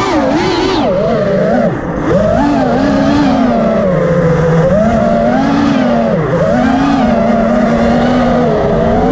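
FPV quadcopter's electric motors and propellers whining, the pitch rising and falling with the throttle, with a short drop in pitch and loudness about two seconds in and another dip about six seconds in.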